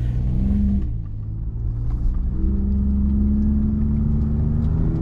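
2020 Ford F-150 Raptor's twin-turbo 3.5-litre EcoBoost V6 and road noise heard inside the cab while driving. The engine note dips about a second in, then climbs slowly.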